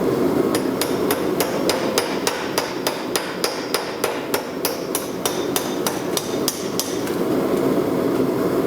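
Hand hammer striking hot steel on an anvil in quick, even blows, about three a second, that stop about seven seconds in, over a steady rushing noise.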